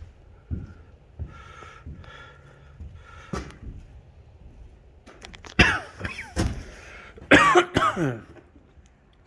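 Footsteps, then a person coughing in two loud bouts, one a little past halfway and one near the end.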